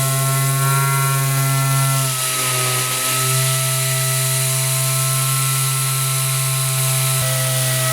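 Nitto Kohki APS-125-01 pneumatic orbital sander running steadily with a hum and whine. Its pitch drops slightly and settles about two seconds in, and there is a short click near the end.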